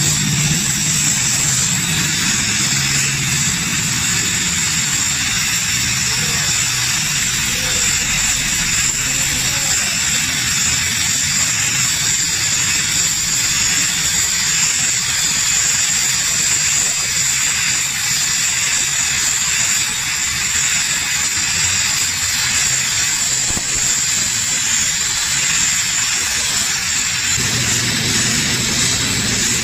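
LPG gas welding torch burning with a steady loud hiss, its flame on an aluminium motorcycle cylinder head as filler rod is melted into the repair. A low hum comes back near the end.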